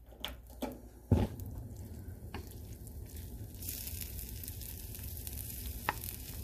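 Canned salmon and onions sizzling in a metal pan while a wooden spoon stirs through them, with a sharp knock about a second in and a few lighter clicks. The sizzle grows louder and hissier a little past halfway.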